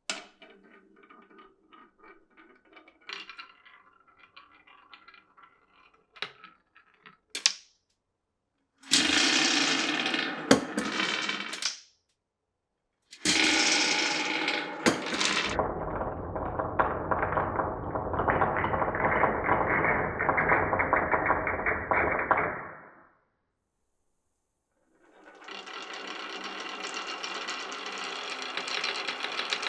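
Marbles rolling and clattering along the wooden and plastic tracks of a marble run: light clicks at first, then three longer stretches of dense rolling rattle separated by sudden silent breaks.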